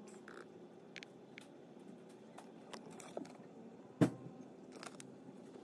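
Faint, scattered clicks of a laptop being worked while a file list is scrolled, with one sharp, much louder click about four seconds in, over low room hum.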